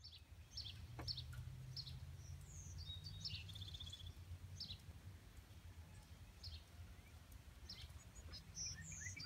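Faint outdoor ambience: scattered bird chirps and calls, including a short trill about three seconds in, over a low steady rumble.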